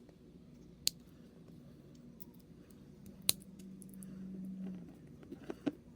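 Sharp plastic clicks and snaps as the small parts of a Blokees action figure are handled and fitted together: a click about a second in, a louder one past the middle, and a few light ticks near the end. A faint low hum runs for about two seconds in the middle.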